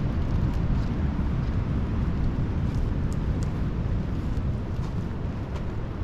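Wind buffeting the microphone: a steady low rumble with a fast flutter.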